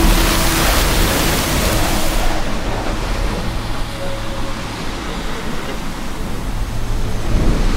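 Sandstorm: strong wind blowing sand in a dense, loud hiss. The hiss is brightest for the first two seconds, then turns duller and eases a little before building again near the end.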